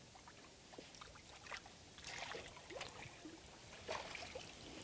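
Faint, irregular splashing and dripping water as a hooked smallmouth bass thrashes at the surface and is scooped into a landing net, with the sharpest splash about four seconds in.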